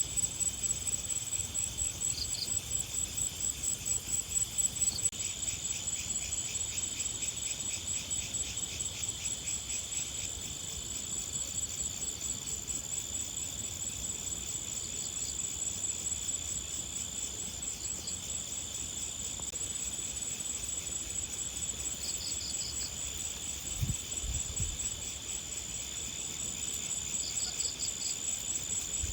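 A chorus of insects, crickets among them, trilling steadily, with short clusters of higher chirps every few seconds. A brief low thump comes near the end.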